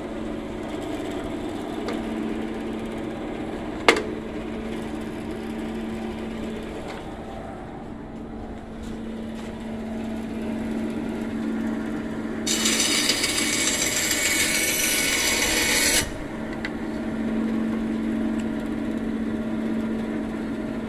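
NRT-Pro BS250 10-inch bandsaw running with a steady hum. About twelve seconds in, its blade cuts through a piece of wood for about three and a half seconds with a loud, harsh, noisy rasp. A single sharp knock comes about four seconds in.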